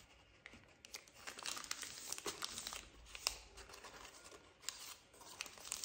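Pleated paper cupcake liner crinkling faintly as it is folded and pressed flat onto a sheet of paper, in an irregular series of small crackles and ticks.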